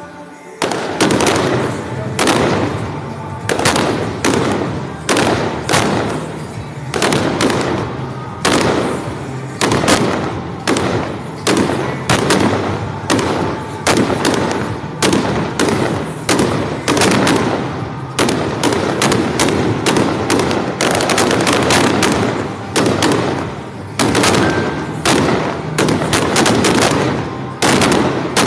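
Fireworks display going off in rapid succession, with bangs and crackles several times a second that begin about a second in.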